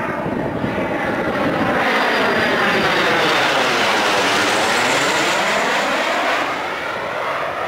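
Sukhoi Su-22 fighter-bomber's single Lyulka AL-21F-3 turbojet, loud and steady as the jet flies low overhead and away. A sweeping, phasing whoosh falls in pitch until it passes overhead about midway, then rises again.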